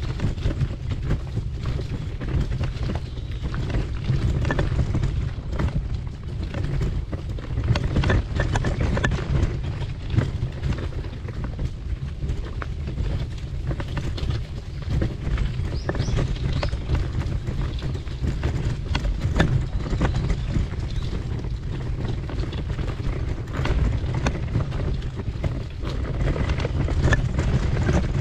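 Footsteps on a hiking trail, an irregular run of short knocks and scuffs, over a steady low rumble of wind on the microphone.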